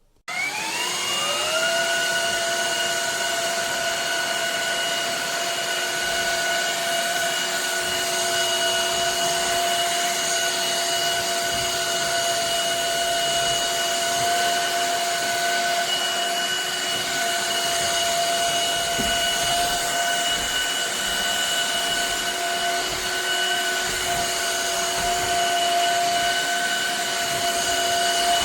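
Shark HydroVac cordless wet-dry vacuum mop switched on, its motor whine rising over about a second, then running steadily with a high whine over a rush of air.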